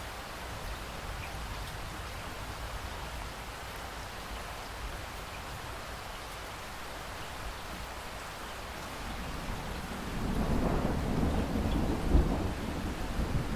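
Steady rain falling, and about ten seconds in a low rumble of thunder builds, loudest near the end.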